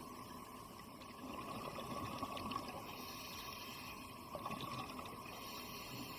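Water sloshing and bubbling, with no clear single event; it swells for about a second and a half starting a second in, and again briefly around four and a half seconds.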